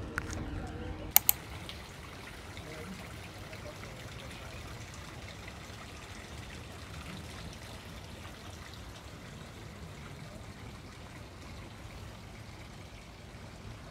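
Running water trickling steadily, with two sharp clicks close together about a second in.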